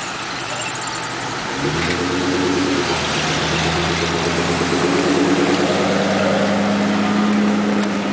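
A late-1940s Chrysler Town & Country woodie convertible driving past at low speed. Its engine note comes in about two seconds in, grows louder as it approaches and rises a little in pitch past the middle.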